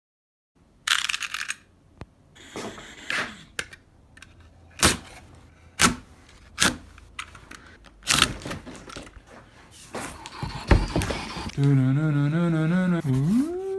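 A cardboard shipping box being handled and opened: a tearing scrape about a second in, then a string of sharp knocks and rustles of cardboard. Near the end a man starts humming a wavering tune.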